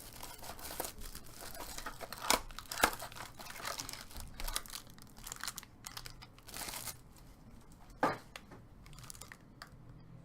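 Trading card pack wrapper crinkling and tearing as it is handled and opened, with irregular rustles and short clicks and one sharp snap about eight seconds in.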